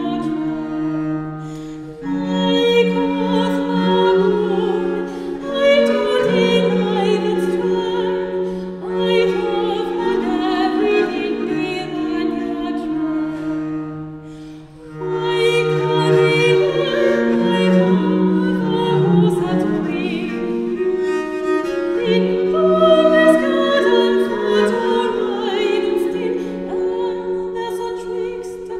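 English Renaissance madrigal played by a soprano voice, recorder and viola da gamba, with sustained bowed bass notes under the higher lines. The music thins out and pauses briefly about halfway through before the next phrase begins.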